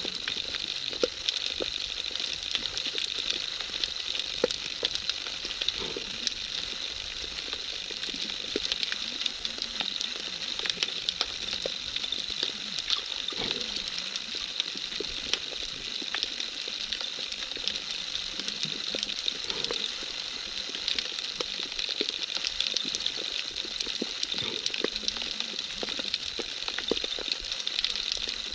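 Underwater ambience in a shallow sea bay: a steady hiss with a dense scatter of small crackling clicks and occasional faint low blips.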